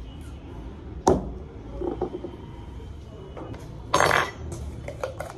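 Clinks and knocks of a scoop against a glass or container while pre-workout powder is measured out: one sharp clink about a second in, a few lighter knocks, then a short, louder rush of noise near four seconds.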